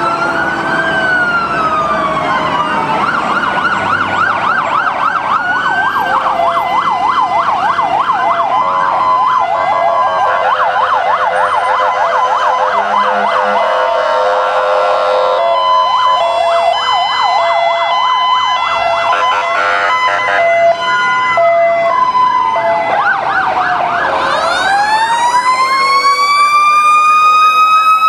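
Several fire trucks' sirens sounding at once as the apparatus pass: electronic sirens sliding slowly up and down and warbling in fast yelps, overlapping one another. About four seconds before the end a mechanical siren winds up in one long rising tone and holds high.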